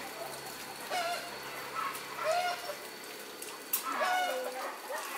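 Chickens clucking, short calls about every second with a longer drawn-out call near the end, and a single sharp click about two-thirds of the way through.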